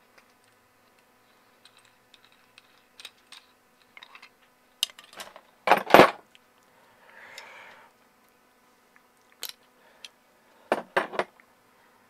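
Small metal clicks and clinks of a flaring tool and copper tubing being handled and taken apart, with a louder clack about six seconds in and a quick pair of clicks near the end.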